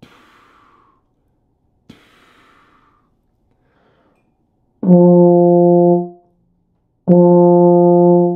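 Two short tongued puffs of air blown without a tone, an air pattern for the 'da' articulation. Then a euphonium plays the same low note twice, each held for just over a second and started with a clean tongued 'da' attack.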